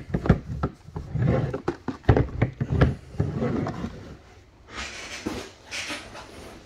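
Shrink-wrapped cardboard trading-card boxes knocked, bumped and slid on a tabletop as they are handled, a quick run of knocks and thuds in the first three seconds. A hissing rustle follows about five seconds in.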